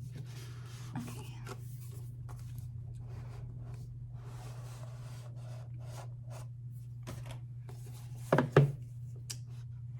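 Soft rustling and rubbing of album paper and packaging being handled, in several short stretches, over a steady low electrical hum. Two sharp knocks near the end are the loudest sounds.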